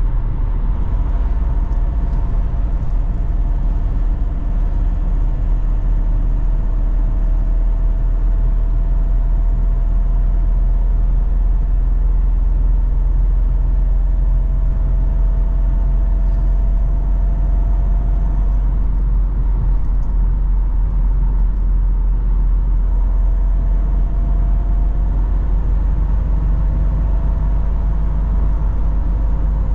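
2002 Opel Omega B 2.2 DTi with its four-cylinder engine running while the car drives: a steady low rumble of engine and road noise, with a faint tone that drifts slowly up and down in pitch.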